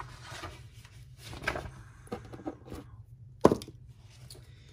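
Items being handled and set down on a wooden tabletop: light rustling and small knocks, with one sharp knock about three and a half seconds in.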